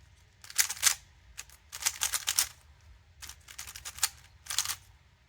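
Lubed Moyu Weilong Ferrocore speed cube being turned fast during a solve: rapid plastic clicking of the layers in quick clusters with short pauses between them.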